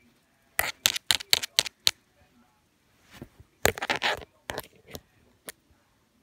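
Close handling noise: a quick run of sharp clicks and knocks, a rougher scraping rustle about three and a half seconds in, then a few more single clicks.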